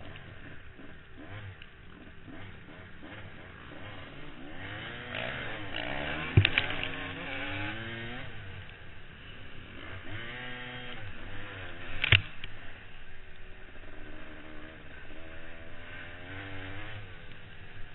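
Dirt bike engines revving at a distance, pitch rising and falling as the throttle opens and closes, with two sharp knocks, about six and twelve seconds in.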